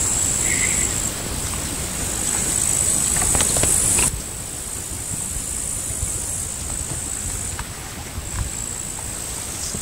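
Steady, high-pitched chirring of field insects, with a low rumble beneath; the sound changes abruptly about four seconds in.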